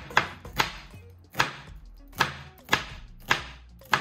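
Chef's knife slicing through onion and striking a wooden cutting board, about seven sharp chops at an uneven pace, while the freshly sharpened edge is tested.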